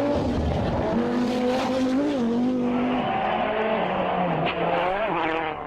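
Rally car engine running hard at high revs. The pitch holds, dips briefly about two seconds in, then drops to a lower note about three seconds in.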